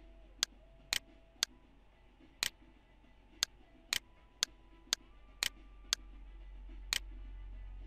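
Computer mouse button clicking, about eleven sharp clicks at uneven intervals, some in quick pairs, over a faint low hum.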